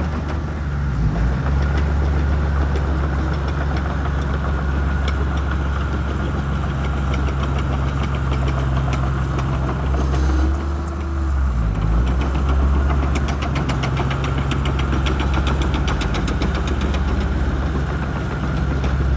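Shantui crawler bulldozer's diesel engine running steadily under load, its note dipping briefly about halfway through, with a rapid clicking over it in the second half.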